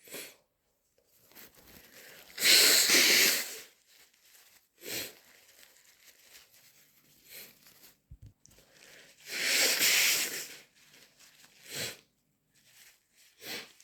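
A person with a stuffy head cold making nasal sounds: two long, loud, noisy blasts about seven seconds apart, with shorter, fainter sniffles between them.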